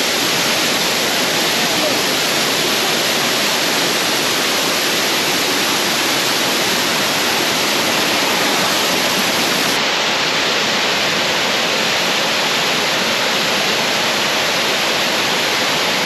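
A waterfall's falling water, a loud steady rush with no break or change.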